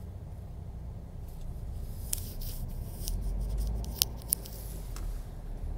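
Low steady rumble of a large truck driving, heard inside its cab, with a few sharp clicks about two and four seconds in.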